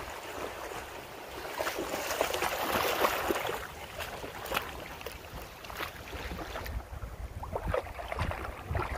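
A dog wading and pawing through shallow creek water, with irregular splashing and sloshing that is heaviest about two to three seconds in. Wind rumbles on the microphone underneath.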